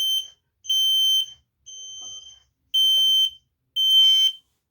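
P9040 photoelectric smoke alarm sounding its push-button test: a high-pitched beep about once a second, each beep about half a second long. The beep about two seconds in is quieter than the rest.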